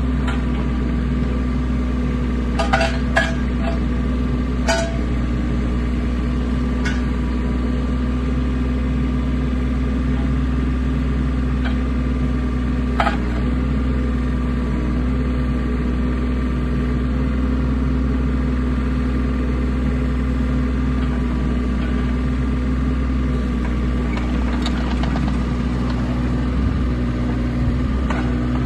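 Takeuchi TB210R micro excavator's small diesel engine running steadily while the boom, arm and bucket are worked hydraulically. A few sharp metallic clinks, three in the first five seconds and one about 13 seconds in.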